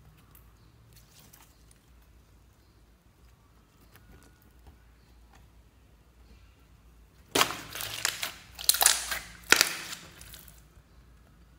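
Hands working a large lump of clear green glitter slime: faint soft handling, then from about seven seconds in a run of loud, sharp pops and crackles as air pockets in the slime burst under pressing, with three loudest snaps.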